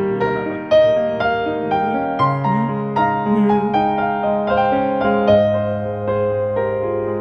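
Background music: a soft piano melody with sustained chords.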